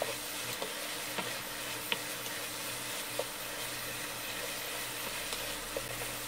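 Shrimp and onion sizzling in oil in a frying pan, stirred with a wooden spatula, with a few light taps of the spatula against the pan.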